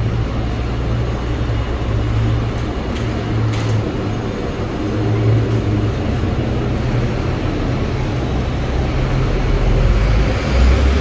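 Steady low rumble and running noise of a moving public-transport vehicle, a metro train or bus, with a little swell near the end.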